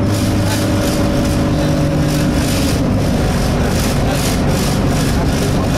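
Inside an Alexander Dennis Enviro200 single-deck bus under way: the engine runs steadily while a vibration pulses through the body several times a second. This is the annoying vibration sound heard from the passenger saloon. The engine note shifts about two seconds in.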